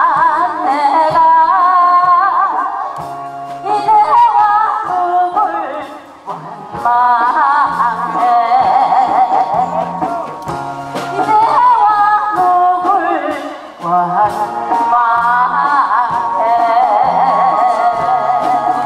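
A woman singing a Korean trot song into a microphone with strong vibrato, over an amplified backing band with a pulsing bass line. Her phrases break briefly about six and fourteen seconds in.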